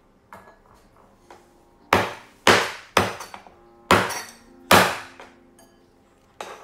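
Meat cleaver chopping a raw whole chicken into pieces: five sharp chops between about two and five seconds in, then a lighter knock near the end.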